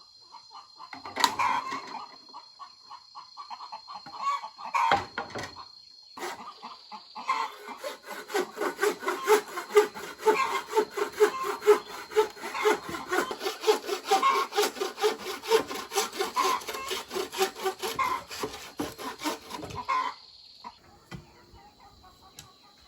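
Hand saw cutting bamboo in rapid, even back-and-forth strokes, about four a second, starting about seven seconds in and stopping abruptly near the end. Chickens cluck in the first few seconds.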